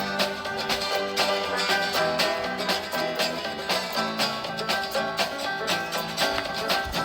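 Background instrumental music with plucked strings and a quick, even beat.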